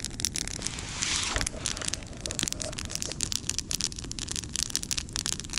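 Campfire crackling, with frequent irregular sharp snaps and pops over a low wind rumble on the microphone. There is a brief hiss about a second in.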